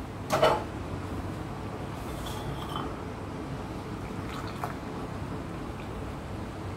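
A single clink about half a second in, then tea being poured from a saucepan through a steel tea strainer into a glass cup, a steady faint pouring with a couple of small ticks.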